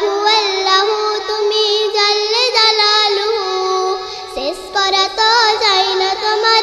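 A young girl singing a Bengali Islamic hymn in praise of Allah, her high voice moving through ornamented, wavering melodic lines, with a short break about four seconds in.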